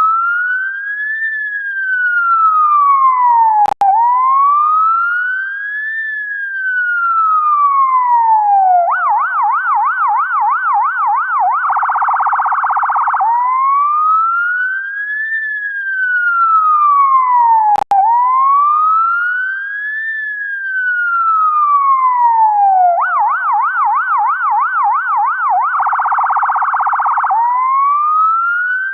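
UK ambulance siren cycling through its tones: a slow wail rising and falling twice, then a fast yelp about four sweeps a second, then a short, very rapid warble, the whole pattern repeating about every 14 seconds. Twice there is a brief dropout with a click at the low point of the wail.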